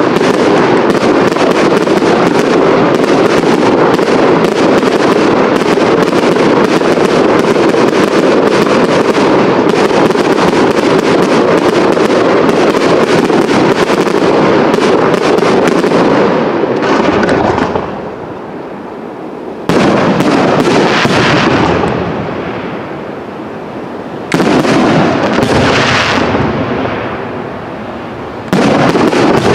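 Aerial fireworks display: a dense barrage of rapid bangs and crackling shell bursts for the first seventeen seconds or so, then three single heavy bursts about four seconds apart, each fading away over a few seconds.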